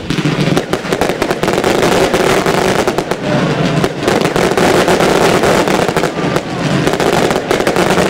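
Ground-fired fireworks shooting off a rapid, unbroken stream of shots with dense crackling and popping.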